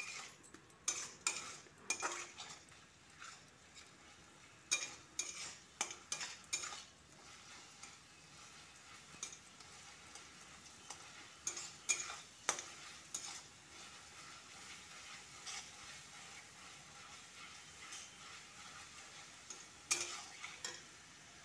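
Metal spatula scraping and knocking against an aluminium kadhai in irregular strokes as masala is stirred and fried, with a faint steady sizzle underneath. The strokes come thickest in the first few seconds and again briefly later.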